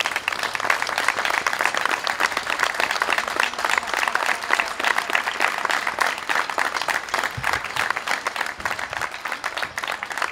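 A small crowd applauding, a dense, steady patter of many hands clapping.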